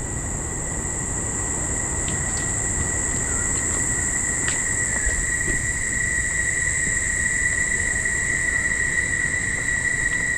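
A chorus of cicadas buzzing in the rainforest: a loud, unbroken, high-pitched drone that holds steady throughout, with a few faint clicks under it.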